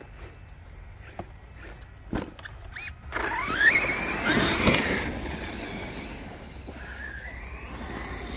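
RC monster truck's brushless electric motor whining up in pitch as the truck accelerates across grass, starting about three seconds in, with tyre and drivetrain noise; the whine then drops and climbs again as the throttle changes.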